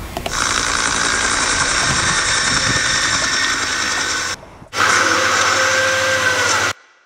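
Steady mechanical whirring of a toy helicopter's rotor sound. It cuts off sharply a little past four seconds, starts again half a second later and stops abruptly near the end.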